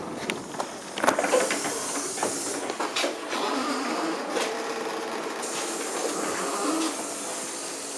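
Inside a LiAZ-6274 electric bus: a hiss of air with a few sharp clunks, then a steady hum from about four seconds in.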